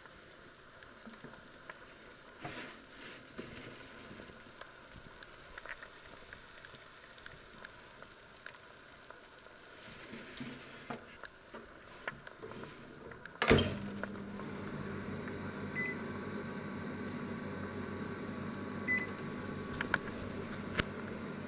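Panasonic inverter microwave oven: light clicks and scrapes as a plate is handled on its grill rack, then the door shuts with a loud clunk about 13 seconds in. The oven then starts running with a steady hum, and its control panel beeps briefly twice.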